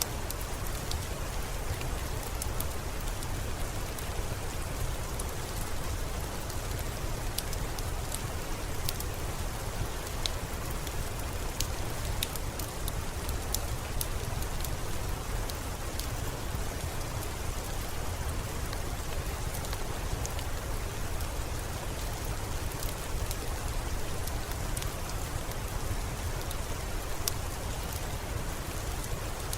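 Steady rain falling, with a low rumble beneath it. Scattered sharp crackles of a wood fire pop irregularly over it.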